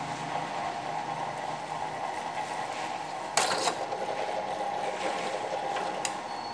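Small bench drill press running steadily with its motor humming while metal is worked. A brief, loud scrape about three and a half seconds in, and a sharp click near the end.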